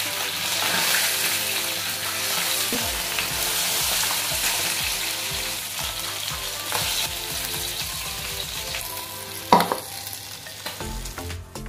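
Pieces of shol (snakehead) fish sizzling in hot oil in a frying pan as they are lifted out with a spatula. A sharp knock about nine and a half seconds in, and the sizzle fades near the end.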